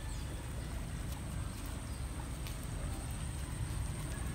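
Steady low rumble of outdoor ambience, with a faint, steady high whine above it and a few faint ticks.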